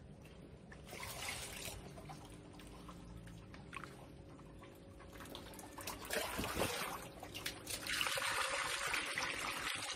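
Water trickling and splashing as a hand stirs wet planting medium in a mesh basket in a tub of water, rinsing it. Quiet at first with a brief splash about a second in, then louder, steadier splashing from about six seconds in to near the end.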